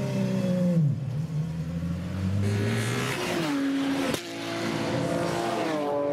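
Porsche 911 GT3 race car's flat-six engine running at low revs. From about two and a half seconds in, the engine note rises as the car is driven past on track, and it cuts off abruptly about four seconds in. Then the engine is back at low revs, its pitch stepping down near the end.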